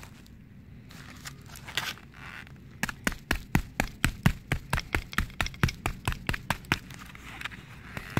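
A hammer tapping rapidly on a crumpled aluminium foil ball, about five sharp strikes a second. The strikes start about three seconds in and ease off briefly near the end. This is the hammering stage of making a Japanese mirror-polished foil ball.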